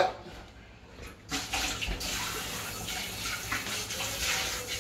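Kitchen tap running water into a metal saucepan in the sink: a steady gush that starts about a second in.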